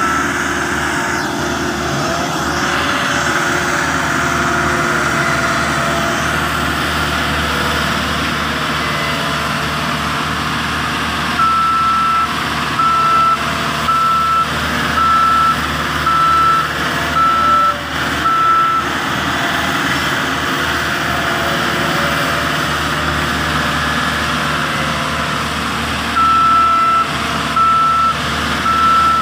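Caterpillar single-drum vibratory roller's diesel engine running steadily, with its reversing alarm beeping about once a second: briefly at the start, for about seven seconds from about twelve seconds in, and again near the end.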